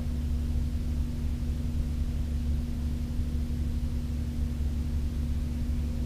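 A steady low hum and rumble with a constant tone above it, unchanging throughout.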